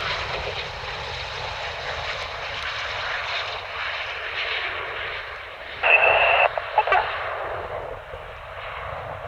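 Steady jet aircraft engine noise, with a short radio burst about six seconds in.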